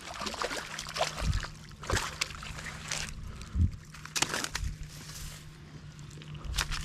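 Water splashing and sloshing as a hooked bass is fought in on a fishing line, with scattered irregular clicks and knocks.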